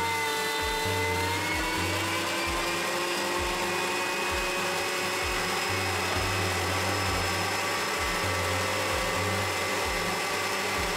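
Electric meat grinder running steadily while it minces beef: a motor whine over a dense whirr, dipping slightly in pitch about a second in.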